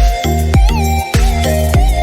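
Electronic instrumental music: a steady kick drum about twice a second under sustained synth chords and a gliding synth lead.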